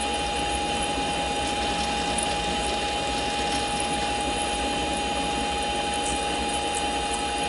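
Mini lathe running steadily with a steady whine, its parting blade feeding into a 1-1/4 inch 1018 steel rod to cut it off.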